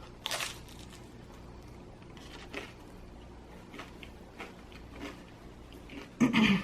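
Close-miked eating of crispy pizza. There is a bite just after the start, then soft chewing with small wet mouth clicks, and a louder bite near the end.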